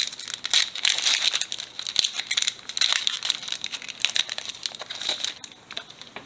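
Foil wrapper of a Pokémon XY Furious Fists booster pack crinkling and crackling as it is torn open by hand and the cards are pulled out. The crackle thins out about five seconds in.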